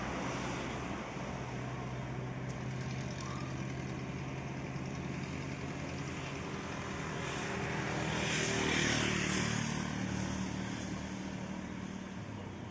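Road vehicle engines: a steady engine hum, with a vehicle passing close by, getting louder and fading about two thirds of the way through.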